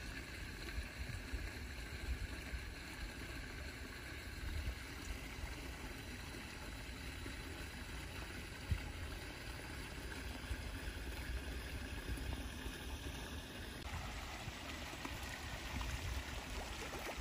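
Steady outdoor background noise: a faint even hiss with irregular low rumble of wind on the microphone, and the hiss changes a little before the end.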